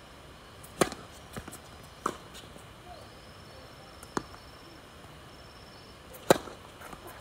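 Tennis racket striking the ball on two serves: sharp pops about a second in and near the end, with two fainter knocks in between.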